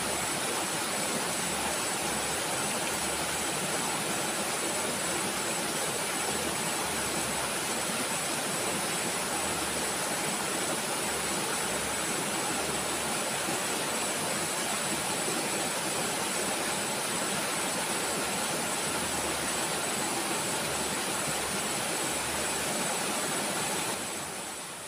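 Steady rush of a shallow, rocky river flowing over stones: a continuous even hiss with no breaks, with a faint steady high whine over it.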